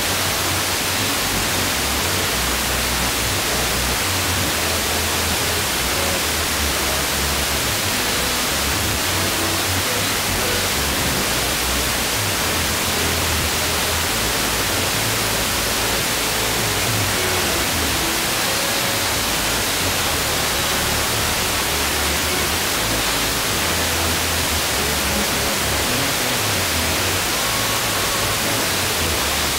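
FM radio tuned to 89.8 MHz giving a steady hiss, with faint music barely coming through. The noise comes from a stereo encoder wrecked by interference from a switching power supply's chopping.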